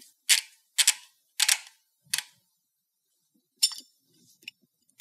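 Socket ratchet clicking in short runs as the axle spindle nut is run onto the wheel-end hub: four quick bursts of metal clicks about half a second apart, then a few lighter clicks near the end.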